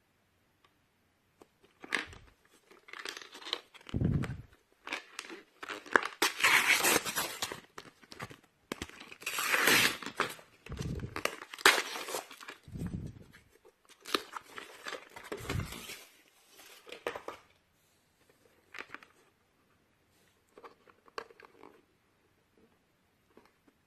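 Packaging of a smartphone repair kit being handled: plastic crinkling and tearing in several rustling bursts, with a few dull knocks. It settles to small scattered clicks near the end.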